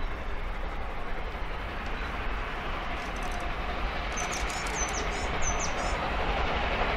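Steam locomotive working a train in the distance, heard as a steady rushing noise that grows louder as it approaches. A bird chirps several times over it, about three to six seconds in.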